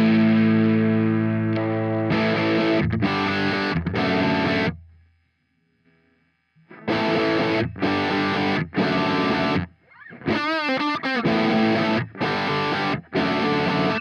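Electric guitar played through a TC Electronic JIMS 45 amp-emulation pedal, recorded direct, with a distorted crunch tone. A long held chord gives way to short chord stabs, a brief pause about five seconds in, and more stabs, with a quick wavering, bent lick near ten seconds.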